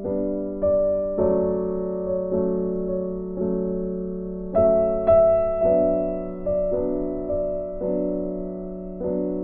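Slow piano music, notes struck about once a second and each left to ring out and fade, over a held low tone.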